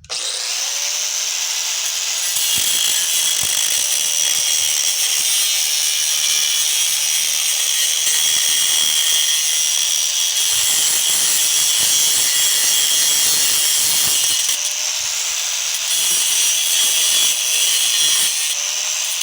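Angle grinder with a cut-off wheel cutting into a scrap electric motor: a loud, steady, high-pitched metal-cutting screech that starts at once and eases briefly twice in the later part.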